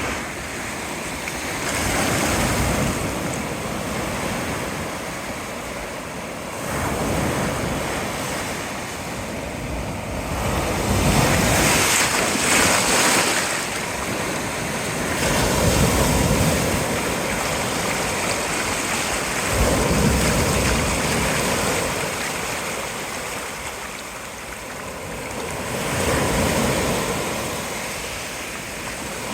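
Pacific surf breaking on the shore, a steady wash of noise that swells as each wave breaks and eases between them, about every four to five seconds. Wind buffets the microphone.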